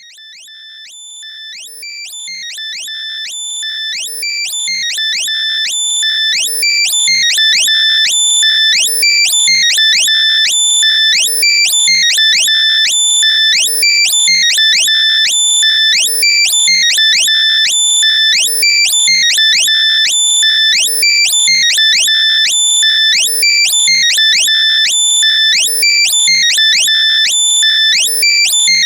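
Loud synthetic earbud-finder alert: shrill electronic beeps cut through by fast rising chirps, repeating over and over, played to locate lost AirPods or earbuds. It fades in over the first six seconds or so, then holds steady and loud.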